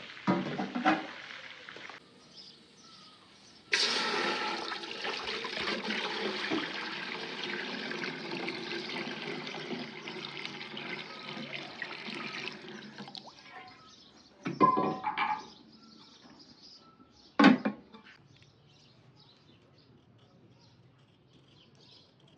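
Water poured into a hot pot of frying chicken: a sudden loud hiss that fades over several seconds. A few knocks follow near the end.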